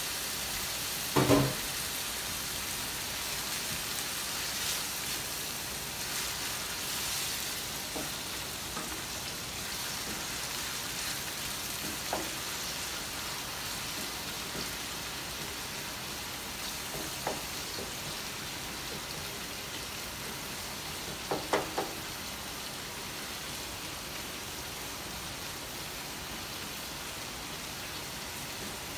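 Meat sizzling and simmering in a pan as the water it has released cooks off, a steady hiss. A few knocks break in, one about a second in and a quick cluster later on.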